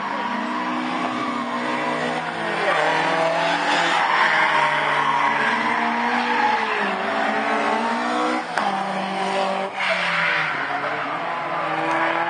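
Rear-wheel-drive car drifting: its engine revs climb and drop over and over as the driver works the throttle through the bends, over a continuous squeal and hiss of tyres sliding sideways.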